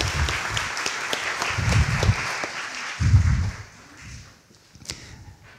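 Audience applause in a hall, fading out about three and a half seconds in, with a couple of dull low thumps partway through.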